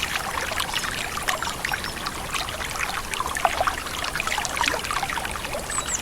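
A forest river flowing and babbling over rocks, a steady trickling, splashing rush of water. A few short, high chirps come in right at the end.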